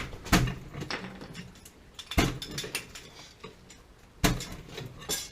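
Sharp metallic clanks and knocks from metal parts and tools being handled while fitting a water heater, a few strong strikes about two seconds apart with lighter rattles between.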